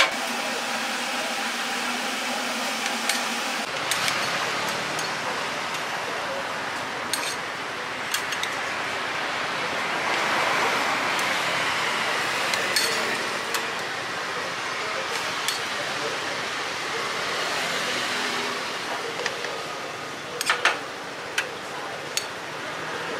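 Utensils clinking against plastic bowls and a stainless steel steamer as steamed meatballs are cut and plated, with scattered sharp clicks and a few louder ones near the end, over a steady hiss.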